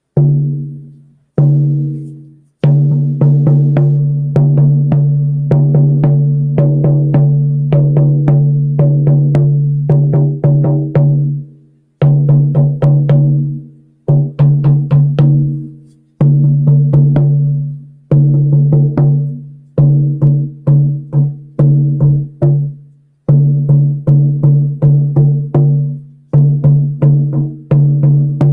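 Hand drum with a birch bark frame and deer-hide head, struck by hand. Each beat rings with a deep, resonant tone. It opens with two single strikes, then settles into a steady rhythmic beat in phrases with short pauses between them.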